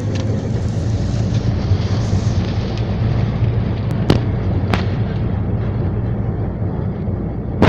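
Small boat's engine running steadily under way, a low rumble with water and wind noise, broken by a few short sharp knocks.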